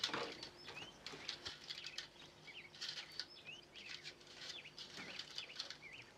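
Light clicks and rustles of dried fruit pieces being picked up and dropped onto a plate, and a plastic dehydrator tray being moved. Short high chirps of a small bird recur about once a second in the background.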